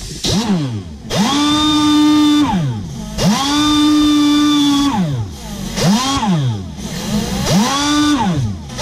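Air-powered die grinder with a small wire brush, triggered in about five bursts. Each burst spins up to a steady whine and winds back down, and two of them run about a second and a half. The brush is scrubbing the aluminium condenser fin clean so the solder will stick.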